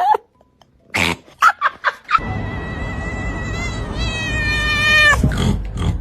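A cat making a few short sounds, then one long, high-pitched, drawn-out yowl of about three seconds that dips slightly in pitch at the end and cuts off.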